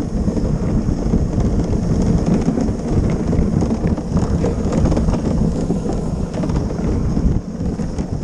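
Luge cart's wheels rolling fast over the asphalt track, a steady rumble mixed with wind on the camera microphone. The rumble drops near the end as the cart slows into the finish.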